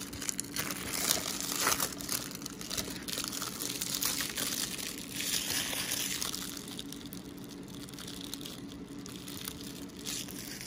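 Clear plastic shrink wrap being torn and peeled off a DVD case, crinkling and crackling. It is loudest in the first six seconds, then quieter crinkling as the loose wrap is handled.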